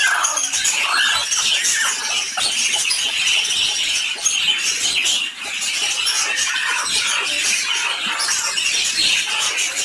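Broody hen clucking and squawking as she is lifted off her clutch of eggs, over a continuous background of high-pitched chirping.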